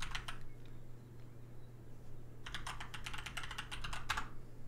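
Typing on a computer keyboard: a short run of keystrokes at the start, then a longer run of quick keystrokes from about two and a half to four seconds in, over a faint steady low hum.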